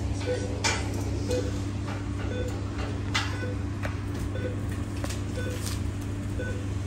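Commercial kitchen running: a steady low hum from the extraction and refrigeration, an electronic beep repeating about once a second, and a few sharp clatters of utensils and containers.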